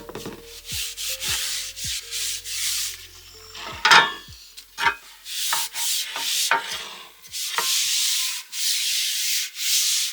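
Repeated rubbing strokes along a wooden shovel handle as linseed oil is worked into the wood, about one stroke a second, with a sharp knock about four seconds in.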